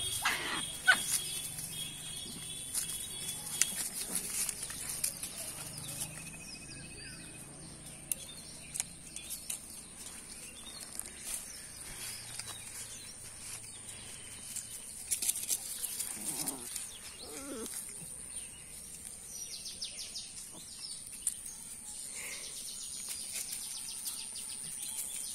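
Two dogs play-fighting on grass: scuffling with short whining cries, one just at the start and a pair about two-thirds of the way through, over a steady high-pitched background whine.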